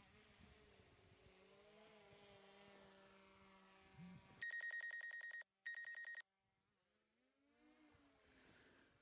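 Faint buzz of a quadcopter drone's propellers, its pitch wavering and gliding as it climbs. About four and a half seconds in, a loud trilling electronic ring cuts in, in two bursts with a short break, like a phone ringtone. The faint propeller buzz returns near the end.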